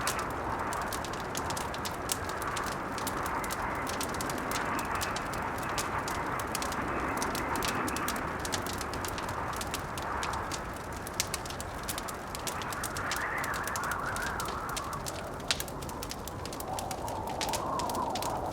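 Blizzard wind howling in slow rising and falling gusts over a steady rush, with a wood fire crackling throughout and two sharper pops in the second half.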